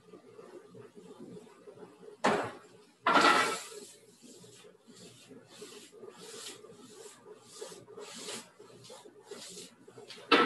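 Cooking at a gas range: two loud clatters of a pan or utensil about two and three seconds in, then a run of short scraping strokes about twice a second as a pan is stirred, and another loud clatter near the end. A steady hum runs underneath.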